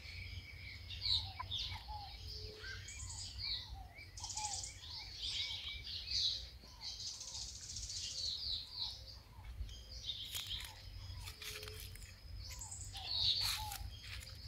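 Several birds chirping and calling: a string of short falling notes repeating about twice a second, with higher chirps and brief trills over them. A low steady rumble lies underneath.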